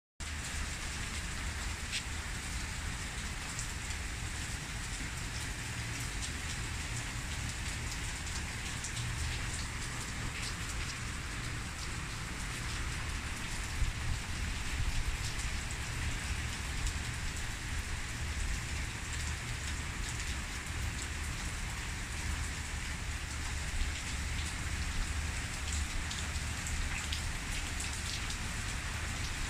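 Steady rain falling on a garden and porch, an even hiss with scattered sharper drop ticks and a low rumble underneath.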